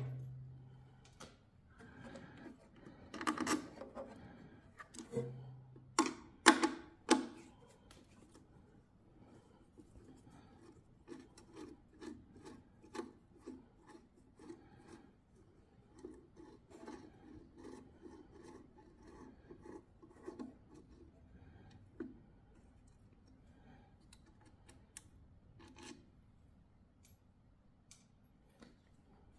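Nut driver and fingers working the nuts on a generator's stud terminal block, moving the winding leads: scattered sharp metal clicks and taps, the loudest in the first several seconds, then a long stretch of faint, rapid small ticks and scraping.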